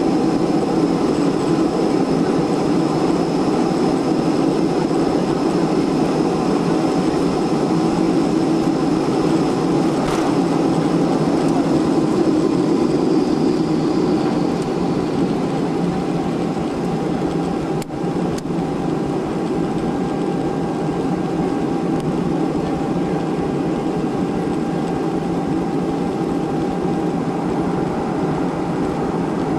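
Cabin noise of a Boeing 747SP's four jet engines at climb power just after takeoff, heard from inside the cabin: a steady rushing drone with a few faint steady whining tones. It drops out for a moment about two-thirds of the way through.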